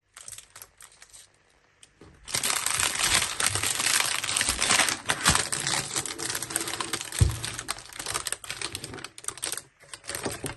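Packaging being handled and opened: a few separate clicks, then from about two seconds in a dense, continuous crackling and rustling, with a couple of dull thumps.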